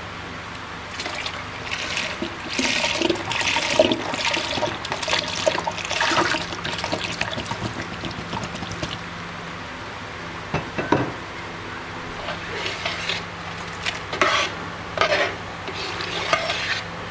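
Milk being poured into a pot of partly cooked rice, in two spells of splashing, with a single knock between them.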